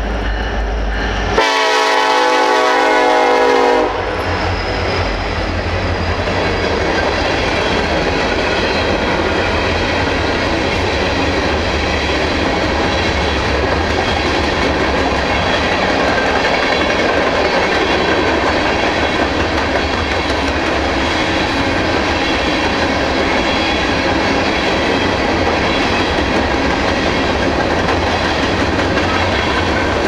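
Norfolk Southern grain train at a grade crossing: a single blast of about two and a half seconds on the lead EMD locomotive's K5LLA five-chime horn about a second and a half in, then the steady rumble and clickety-clack of covered hopper cars rolling by fast.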